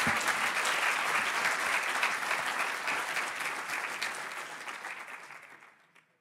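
Audience applauding steadily in a hall at the end of a talk, fading out over the last two seconds.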